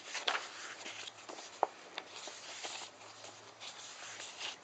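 Paper pages of a book rustling as they are handled and turned, with a few light ticks.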